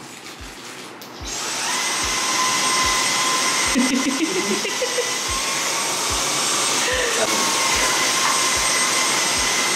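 Dyson V10 cordless stick vacuum starting up about a second in, then running steadily with a high whine as its floor head is pushed over a rug.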